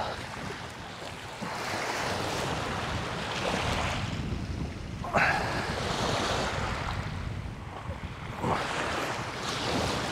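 Small waves washing and breaking on a shingle shore, the surf swelling every couple of seconds, with wind buffeting the microphone.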